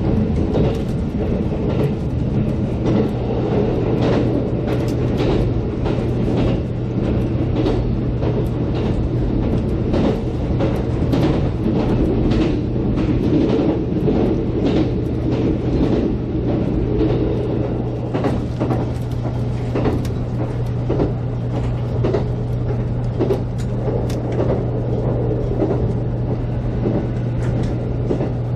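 JR Kyushu 783 series electric limited express train running at speed, heard from inside at the front: a steady low hum and rumble with many short, sharp clicks and knocks from the running gear on the track.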